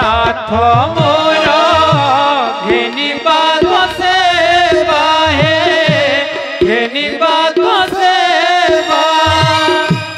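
Ramlila stage song: a voice sings a winding, ornamented melody over sustained instrumental tones, with drum strokes every second or so.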